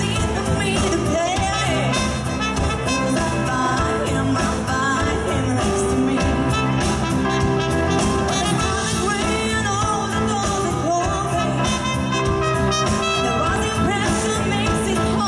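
Live band playing: a trumpet carries the melody over electric guitar, bass and a drum kit.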